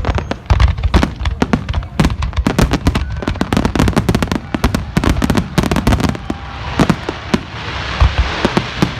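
Fireworks going off in a rapid barrage of booms and bangs, many a second, with a dense crackling hiss rising toward the end.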